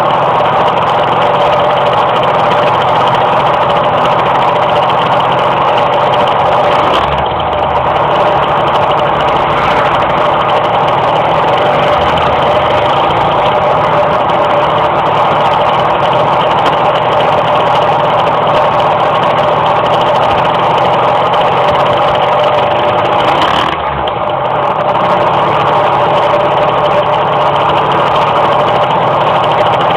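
Tuned two-stroke moped engine running while riding, holding a nearly steady high note with brief dips in level about 7 and 24 seconds in. The engine has trouble climbing in revs.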